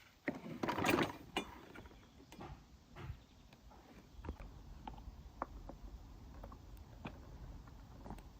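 Handling noises of metal parts and tools: a loud scraping rattle about a second in, then scattered clicks and light knocks.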